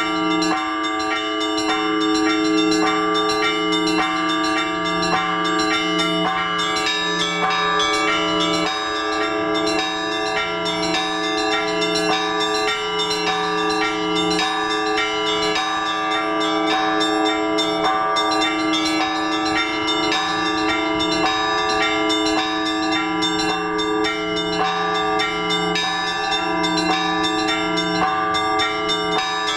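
Orthodox church bells rung by bell ringers in a continuous peal calling to the liturgy. Many bells sound together: smaller bells are struck in quick succession over the steady hum of the larger bells.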